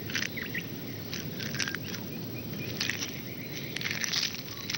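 Scratching and crackling of a malleefowl chick breaking out of its eggshell, buried in the incubation mound, over a low rumble, with a few short high chirps in the first half second.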